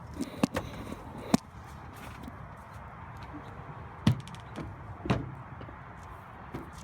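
A few sharp knocks and thumps, three close together in the first second and a half and two more about four and five seconds in, over a low steady rumble.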